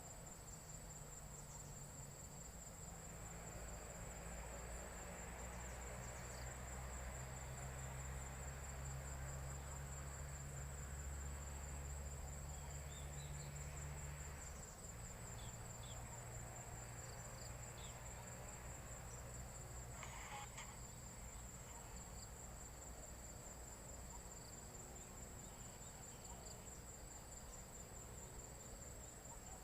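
Insects trilling steadily in one high, finely pulsing tone without a break. A faint low hum sits underneath from about three seconds in until about halfway through.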